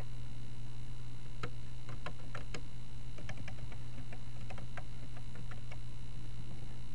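Computer keyboard keys clicking as a word is typed: a run of quick keystrokes starting about a second and a half in and stopping about four seconds later. A steady low electrical hum lies under it.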